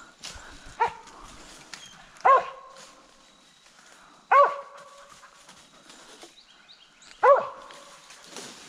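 Squirrel-hunting dog barking treed: four single barks spaced a couple of seconds apart, the sign of a dog holding a squirrel up a tree.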